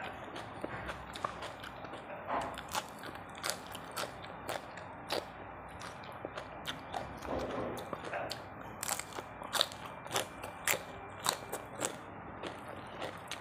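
Close-miked chewing of a mouthful of tam sua, Thai spicy salad with rice noodles and raw vegetables, with sharp wet crunches about once or twice a second, loudest about two-thirds of the way through.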